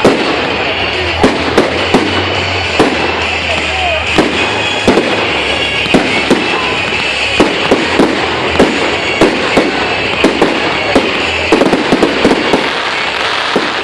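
Fireworks display: shells bursting in a rapid, irregular string of sharp bangs, at times several a second, over a continuous background din.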